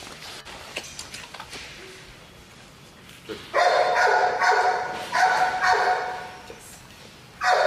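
Young black East German-line German Shepherd barking: four high-pitched barks in quick succession starting about three and a half seconds in, and one more near the end.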